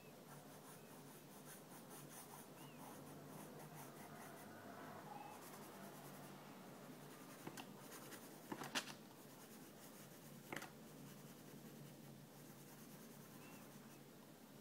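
Faint, steady scratching of a coloured pencil shading on sketchbook paper. A few short sharp clicks come a little past halfway, the loudest about nine seconds in.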